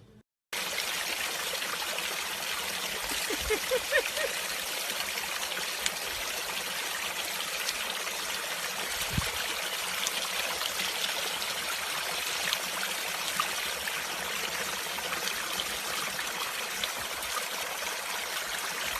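Steady rushing of running water, with a few short rising chirps about three and a half seconds in and a single low thump near the middle.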